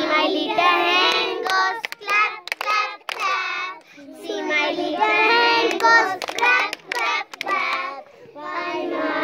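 A group of young children singing a song together, with hand claps among the phrases.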